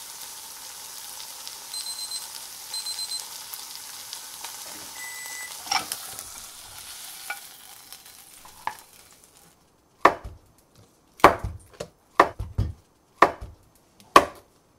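Chicken thigh frying in a pan, a steady sizzle with a few short high beeps over it, fading out after about nine seconds. Then a kitchen knife slicing the cooked chicken on a plastic cutting board: about six sharp knocks of the blade on the board.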